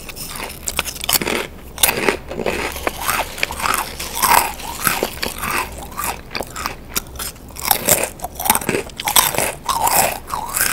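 Close-miked biting and chewing of crunchy snack chips: many sharp crunches coming in quick, irregular succession.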